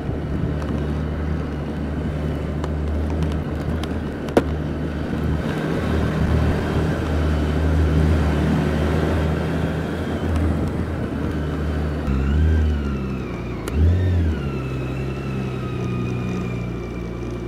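BMW K1600 GT's inline six-cylinder engine running at low speed, with two short rises and falls in revs about twelve and fourteen seconds in. A single sharp click a little after four seconds in.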